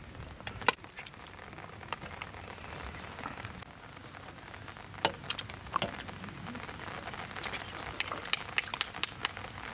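Spoons clicking and scraping on plates as people eat: scattered sharp clicks over a low, steady hiss. At the start, a pot of curry simmering.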